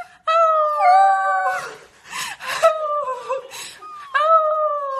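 Corgi puppy howling: three long, high howls, each sliding down in pitch, with breathy noise between them.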